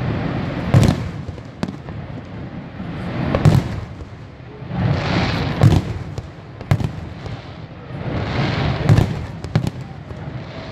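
Aerial fireworks shells bursting: sharp booms every second or two, with swells of crackling from glittering shells about halfway through and again near the end.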